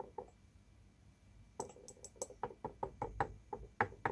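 A couple of faint taps, then from about one and a half seconds in a quick run of light clicks and knocks, four or five a second: a paintbrush tapping against the pans of a watercolour set as paint is picked up.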